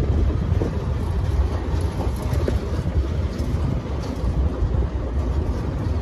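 Vehicle driving along a dirt track: a steady low engine and road rumble with faint knocks and rattles, and wind buffeting the microphone.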